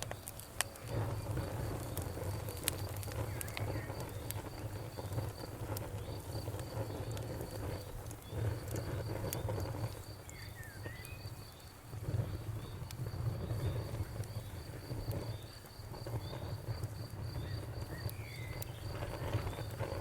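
Campfire burning with a low rumble that swells and eases, and scattered sharp crackles and pops. Crickets chirp in a steady pulsed trill behind it.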